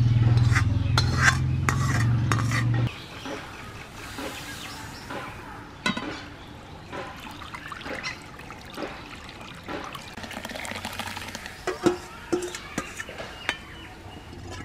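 Metal kitchenware being handled: cooked lentils are poured and scraped from a metal pan into a steel bowl, water is poured from a steel jug into the pan, and a steel ladle stirs the dal and clinks against the bowl. Over the first three seconds a loud, steady low hum dominates, then cuts off suddenly.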